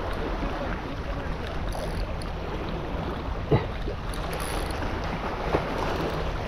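Steady rush of wind and open-sea water around a small boat, with two brief knocks, one midway and one a couple of seconds later.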